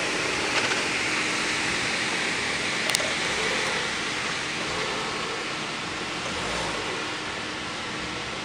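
Renault Duster SUV engine running at low speed as the vehicle crawls over uneven dirt mounds, under a steady noisy hiss. A sharp click about three seconds in.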